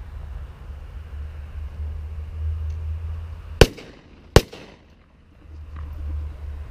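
Two shotgun shots about three-quarters of a second apart, fired at a flying mallard drake; the second shot brings it down.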